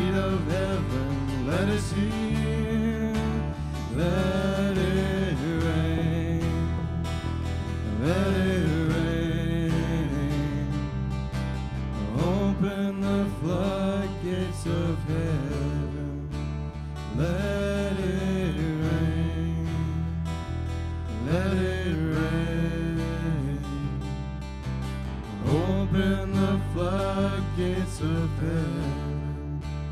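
Live worship band playing a slow song: strummed acoustic guitar over long held bass-guitar notes, with a voice singing a wavering melody on top.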